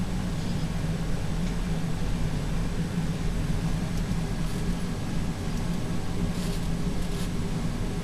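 A steady low hum, with a couple of faint rustles near the end as hands handle the baby's hearing-test earcups.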